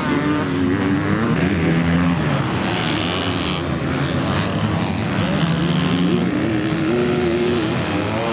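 Motocross bikes racing on the track, several engines running at once with their pitch rising and falling as the riders work the throttle.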